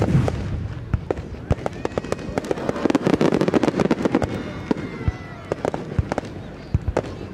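Large aerial firework shells bursting: a deep boom at the start, then many sharp bangs and a dense crackle that is thickest in the middle.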